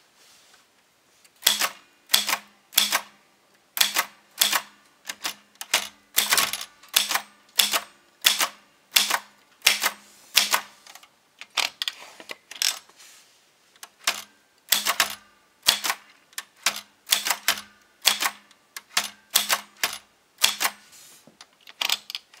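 Typewriter keys being struck one at a time at a slow, uneven pace, each stroke a sharp clack of the type hitting the paper. The strokes begin about a second and a half in.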